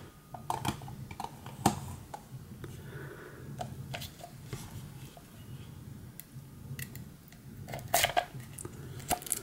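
Hands opening a small cardboard trading-card box and handling a plastic card case: scattered light clicks, taps and rustles. About eight seconds in comes a run of louder, sharper clicks as a blade is put to the card's wrapping.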